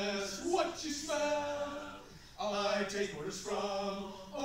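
Men's voices singing together a cappella, holding long notes in short phrases, with a brief pause about two seconds in.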